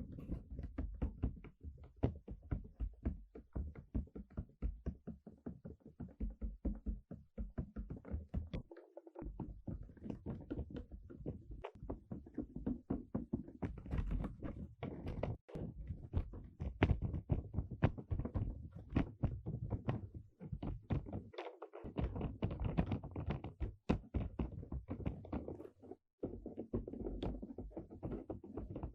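Rapid irregular tapping and knocking on a hard object, several taps a second, with two brief breaks.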